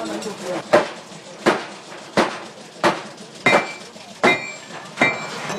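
Hand hammer beating a flat steel blade on an anvil, seven strikes at a steady pace of about one every 0.7 seconds, the later blows leaving a short high metallic ring.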